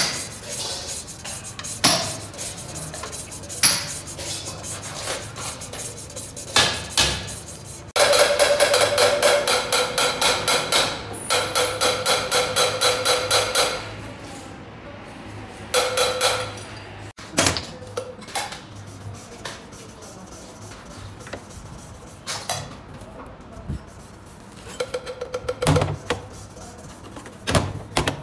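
Valves of a 4BD1 diesel cylinder head being lapped into their seats with lapping compound: rhythmic gritty grinding as the lapping sticks are spun back and forth, loudest in a long stretch about eight seconds in. Sharp metallic taps come here and there.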